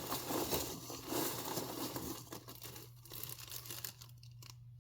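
Packaging crinkling and rustling as hands rummage through a mailed package, an irregular run of crinkles that thins out toward the end.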